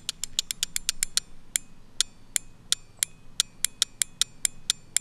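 Chevy truck starter relay clicking over and over as its coil lead is tapped on and off a car battery terminal. The clicks are sharp and come in quick, uneven runs. Each click is the contacts pulling closed or springing open, a sign that the relay is good.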